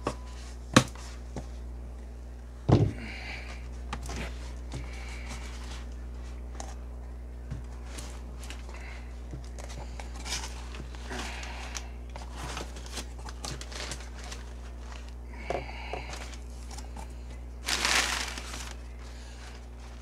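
A cardboard mail package being cut and opened by hand: scattered sharp knocks and taps, the loudest about one and three seconds in, with intermittent crinkling of packaging and a longer rustling burst near the end. A steady low hum runs underneath.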